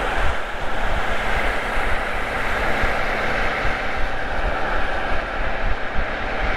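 Inside the cabin of a 2009 Mercedes-Benz SL65 AMG, twin-turbo V12, cruising at highway speed: a steady mix of engine, tyre and wind noise with no revving.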